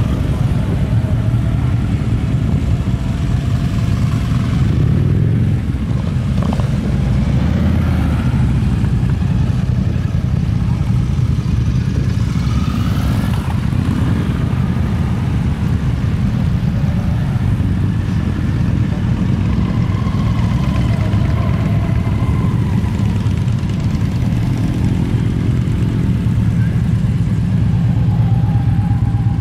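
Steady low rumble of vehicle engines running, motorcycles among them, with faint voices in the background.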